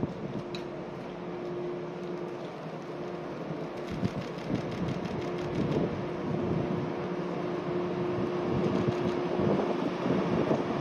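Departing express electric train rolling slowly through the station toward the listener: a steady electrical hum over wheel rumble that grows gradually louder as it draws near.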